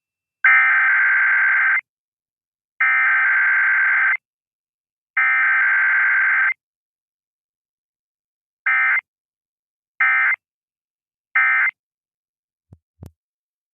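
Emergency Alert System SAME digital data bursts, the buzzing data tones: three bursts of about a second and a half, then three short bursts, the header code sent three times followed by the end-of-message code. Two faint clicks near the end.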